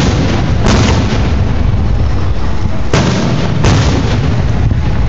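Aerial fireworks shells bursting overhead: four sharp booms in two pairs, one at the start and one about two-thirds of a second later, then another pair about three seconds in, with a low rumble rolling on between them.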